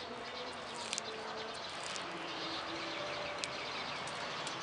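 Tortoise biting and chewing a zucchini leaf, with a few faint crisp clicks. Faint bird chirps sound over steady background noise.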